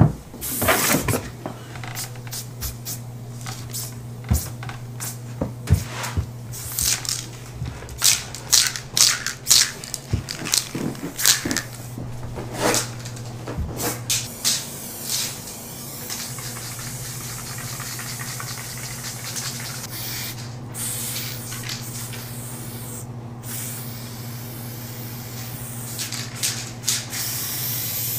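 Aerosol spray paint cans hissing against a wall, in many short bursts in the first half and longer, steadier sprays in the second half.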